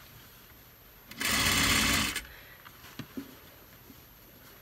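Juki sewing machine running in one short burst of about a second, stitching a shirt's sleeve seam, followed by a few light clicks.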